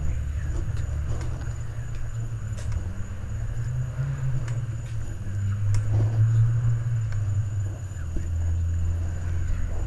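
Low, uneven rumble of handling and rubbing on a small body-worn camera's microphone while the wearer walks, with a few faint clicks.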